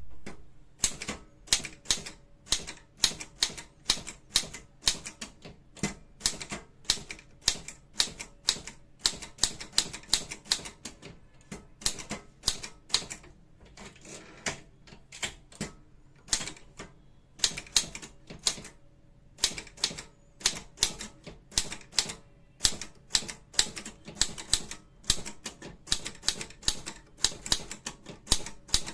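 Godrej Prima English-keyboard typewriter being typed on: a steady run of sharp key strikes, several a second, broken by two short pauses about halfway and about two-thirds of the way through.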